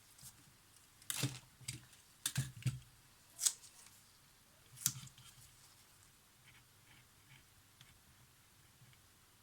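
A quick series of sharp clicks and short handling noises, clustered in the first half and then dying away to a few faint ticks.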